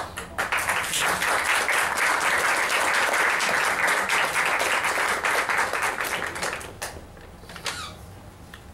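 Audience applauding: a dense patter of many hands clapping that starts just after a spoken punchline, holds for about seven seconds, then dies away into a few last scattered claps.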